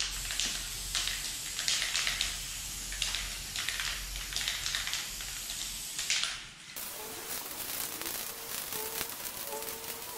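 Aerosol can of high-strength spray contact adhesive hissing in repeated surges as it is sprayed onto carpet and plywood. About two-thirds of the way through the sound changes to a steadier hiss with a faint whistle in it.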